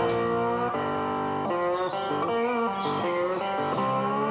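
Background music: guitar playing slow, held chords that change every second or so, with a few bent notes.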